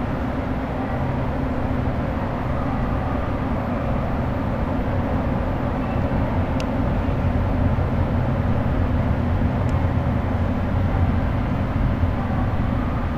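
Steady low hum and rumble of a Y500-series electric train standing at an underground station platform.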